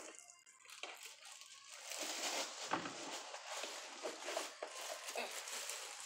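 Thin plastic bag crinkling and rustling as it is pulled off a blender's motor base, with small crackles throughout.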